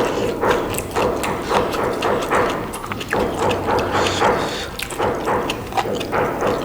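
Close-up chewing and mouth sounds of people eating buffalo innards: irregular clicks several times a second.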